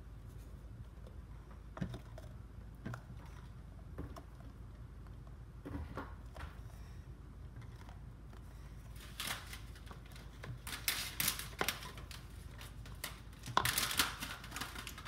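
Plastic Elmer's school glue bottle being handled and squeezed over a plastic bowl: a few light knocks, then, from about two-thirds of the way in, bursts of crackling as the bottle is squeezed hard to force the last glue out.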